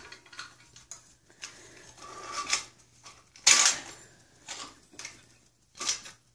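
Clinking and rattling of a Christmas tree stand's metal fittings as the trunk pole of an artificial tree is fitted into it and handled. The knocks come one after another, with the loudest clatter about halfway through.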